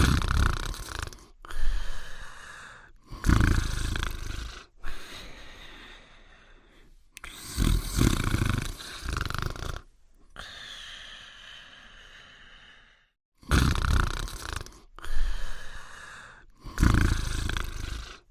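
Cartoon snoring sound effects for a sleeping dog: a series of loud, breathy snores in short spliced clips, each cutting off abruptly before the next begins.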